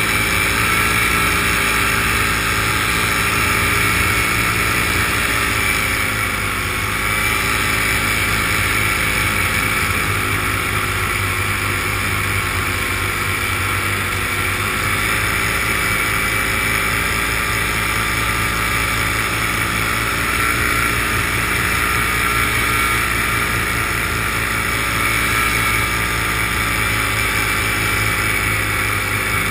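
Steady drone of an aircraft's motor and propellers in flight, heard from on board, holding an even pitch throughout.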